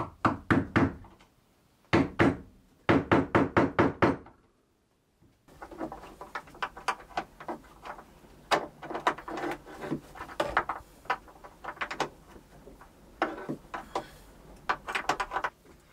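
Steel claw hammer striking a chisel into wood in quick runs of sharp blows: about five, a single one, then about seven fast ones. After a break, quieter irregular knocks and clatter follow as work goes on by hand in a cramped space.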